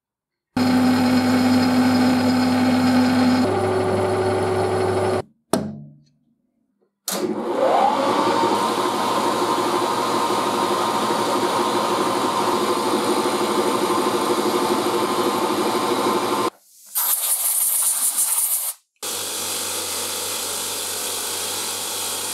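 Machine-shop motors in turn. First a metal lathe runs with a steady hum whose pitch steps up a few seconds in. Then a milling machine spindle spins up with a rising whine that settles, running steady while an end mill cuts a slot in a small brass part. After a short hissing burst, a bench grinder's buffing wheel runs with a steady, quieter hum as a small metal part is polished against it.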